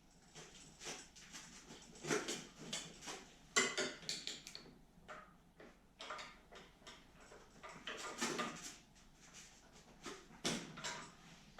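Irregular clinks and clatter of hand tools and small metal parts being handled, with the sharpest knock about three and a half seconds in.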